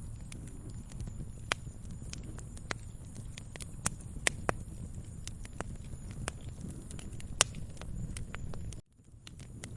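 Wood fire crackling: irregular sharp pops and snaps of varying loudness over a low, steady rumble of burning. Near the end the sound cuts out for a moment and fades back in.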